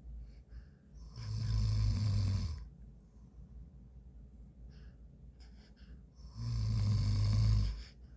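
A man snoring: two long snores with a low buzz, each about a second and a half, some five seconds apart.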